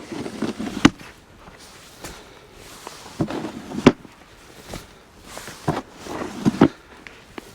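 Crunching in deep snow, in three bursts about three seconds apart, each ending in a sharp knock.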